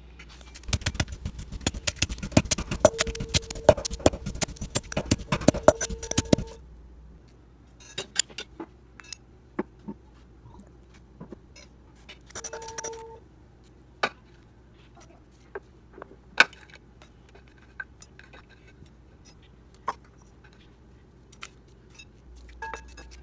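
Wooden pestle pounding chilies and garlic in a metal mortar bowl: rapid strikes for about six seconds, the bowl ringing with each, then scattered single knocks and clinks against the bowl, with a short flurry of pounding about halfway through.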